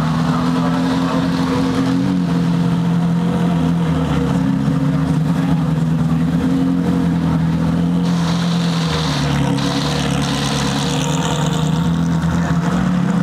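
Ferrari Challenge race cars' V8 engines running at a low, steady idle as the cars roll slowly past. A hiss joins over them for a few seconds after the middle.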